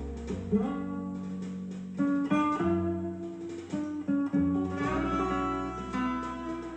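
Acoustic guitar music played back through a YL Acoustic five-way horn loudspeaker system: plucked notes ringing out over long-held low notes.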